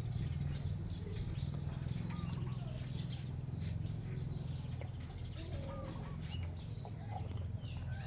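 Birds chirping here and there over a steady low rumble.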